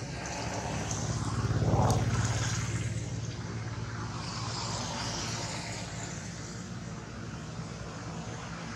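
A motor vehicle's engine running nearby, swelling as it passes about two seconds in, then settling to a steady low hum.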